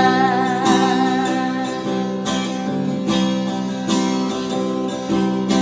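Acoustic guitar strumming chords, a new strum about every second, playing the accompaniment of a slow song between sung lines.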